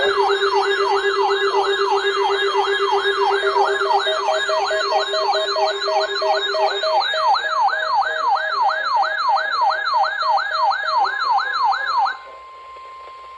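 Weather radio receivers sounding their alert alarms, set off by the NOAA Weather Radio warning alarm tone test: a loud wailing tone sweeping up and down about three times a second, over a steady tone and a beeping tone. About twelve seconds in the alarms cut off, leaving the broadcast's steady 1050 Hz alarm tone much quieter.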